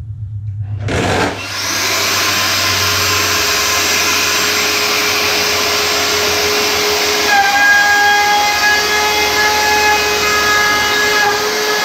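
Compact trim router switching on about a second in and running at full speed. Its quarter-inch-shank top-bearing bit cuts plywood around a hatch opening, making a steady high whine, with a sharper tone coming in about seven seconds in.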